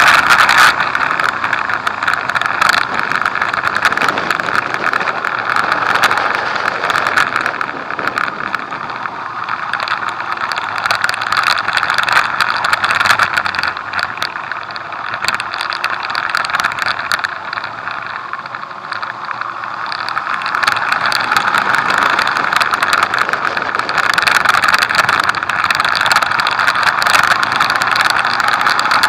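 Motorcycle engine running at speed, mixed with wind rushing and buffeting over a bike-mounted microphone. The sound dips in the middle and grows louder again in the last third.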